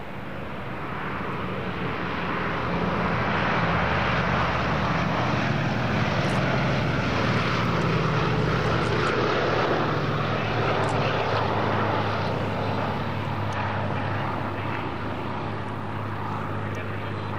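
Boeing B-17G Flying Fortress bombers' Wright Cyclone radial engines and propellers droning in flight as they pass, growing louder over the first few seconds, then slowly fading.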